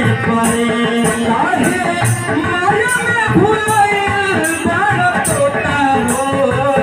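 Devotional bhajan accompaniment: harmonium melody over dholak drumming, with a rattling percussion stroke repeating at a steady beat.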